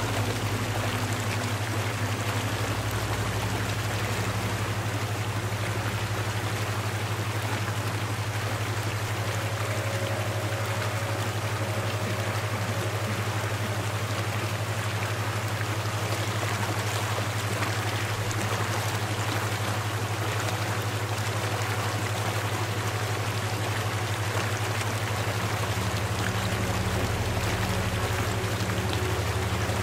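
Steady rushing water, like a flowing stream, with a constant low hum beneath it and faint held tones that come and go.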